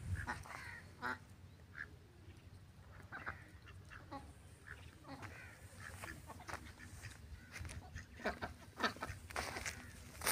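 A small flock of domestic ducks quacking faintly now and then, in short scattered calls.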